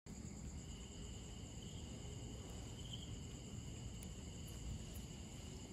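Night insects, crickets, trilling steadily at several high pitches together, over a low, rough background noise.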